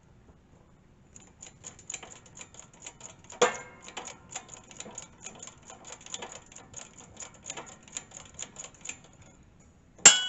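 Hydraulic shop press pressing a new bushing into a worn skid-steer bracket: fast, even metallic ticking, about three or four clicks a second, with one louder click partway through. Near the end comes a sharp metal clank that rings on briefly.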